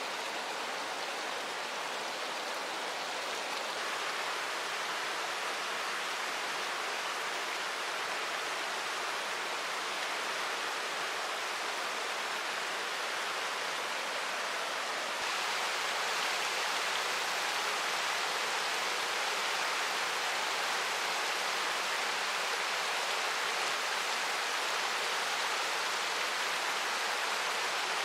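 Steady rush of flowing river water, an even hiss with no distinct events, stepping up a little in loudness about halfway through.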